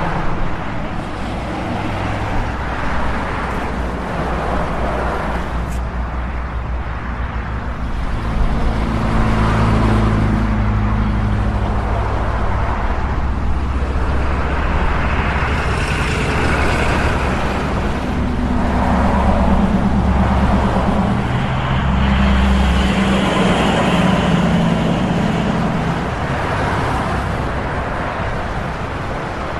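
Road traffic: cars passing continuously with a low engine hum and tyre noise. Several passes swell louder as vehicles go by.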